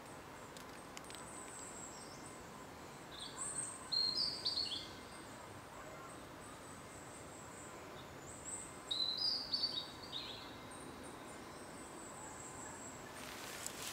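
A songbird sings two short chirping phrases, one about four seconds in and one about nine seconds in, over a steady background hiss with faint high calls. Near the end comes a brief rustle with a few clicks.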